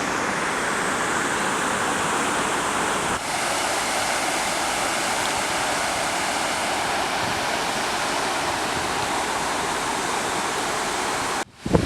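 Steady rushing of falling water, even and unbroken, that cuts off abruptly near the end.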